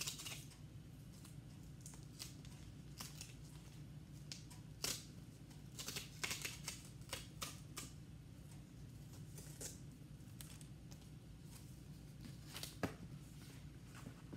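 Keyboard cover in its card-and-plastic packaging being handled and picked at: irregular rustling and crinkling with scattered sharp crackles, over a steady low hum.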